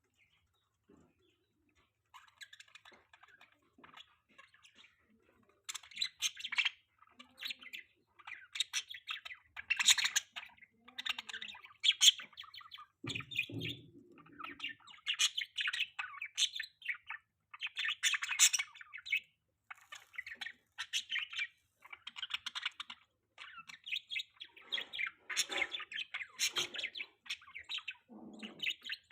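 Small pet parrots chirping and chattering in rapid, overlapping bursts. The chirping starts faintly after a couple of seconds and turns loud and busy a few seconds later, with a brief low thump about halfway through.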